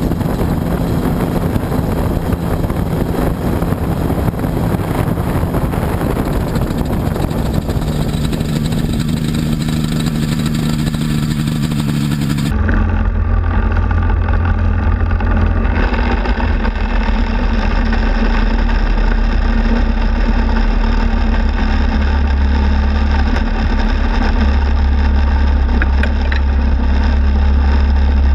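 Quicksilver Sport 2S ultralight's engine and pusher propeller running steadily at low power on the ground. About twelve seconds in the sound changes abruptly, turning deeper and more muffled, with a strong low rumble.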